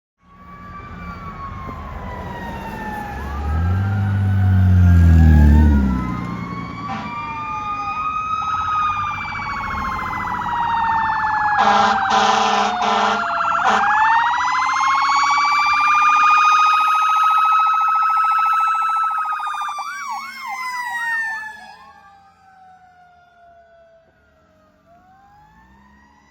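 Fire tender's sirens wailing, two or more rising-and-falling tones out of step with each other, with a deep low tone that swells and fades about four to six seconds in, the loudest part. Around twelve seconds in the truck's air horn blasts for about two seconds. Near twenty seconds the siren switches to a fast yelp, then the sound fades.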